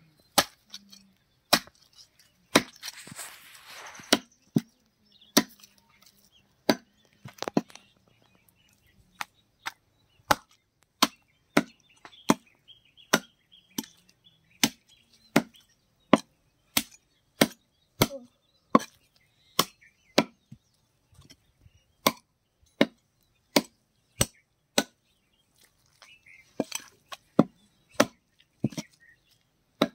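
Heavy curved chopping knife hacking a whole country chicken through bone into a wooden log chopping block: sharp, steady chops, about three every two seconds.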